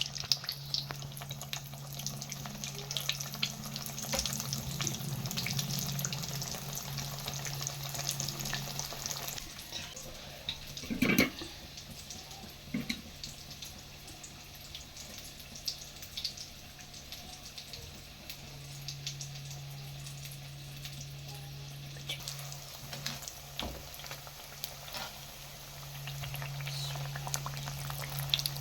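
Food frying in hot oil: a steady sizzle full of small crackles and pops, over a low hum that drops out and comes back. There is one louder knock about eleven seconds in.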